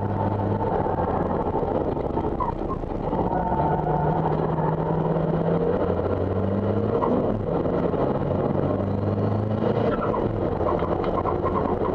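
The Isuzu D-MAX race pickup's 3.0-litre common-rail turbodiesel, heard from inside the cabin. It drops in pitch as the truck slows for a corner, then pulls back up in steps as it accelerates through the gears.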